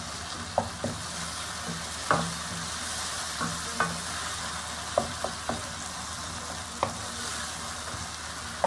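Onion-tomato masala sizzling as it is stirred in a non-stick wok with a spatula, the spatula scraping and lightly knocking against the pan at irregular intervals. The masala is fried down (bhuna) and cooked through.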